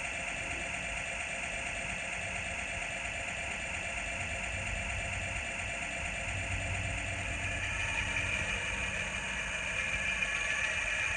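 Model locomotive sound decoder playing a recorded EMD 567 diesel prime mover running steadily. It grows a little louder over the last few seconds.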